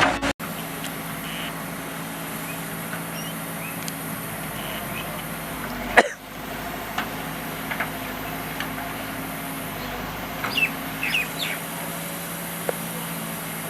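Construction machine's diesel engine running steadily, with one sharp crack about six seconds in. Short bird chirps, likely chickens, come in over it near the end.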